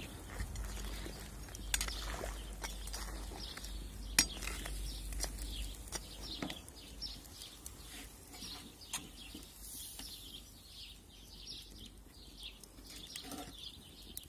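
A few sharp metal clinks from cooking utensils on a pot and grill, spread out, the loudest about four seconds in, with faint bird chirps throughout.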